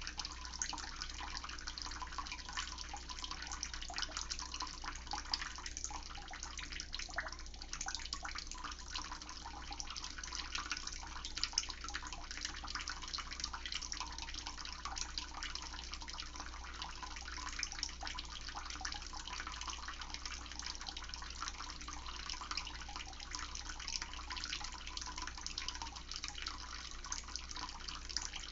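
Water running steadily, a continuous splashing rush with no breaks.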